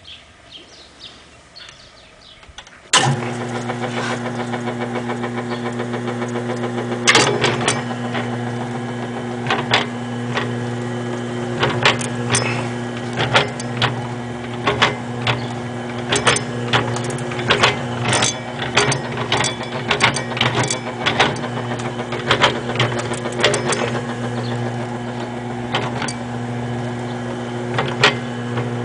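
Hobart 2912 automatic deli slicer switched on about three seconds in, its electric motor then running with a steady hum. From about seven seconds in, irregular clicks and clunks from the machine's moving parts come over the hum.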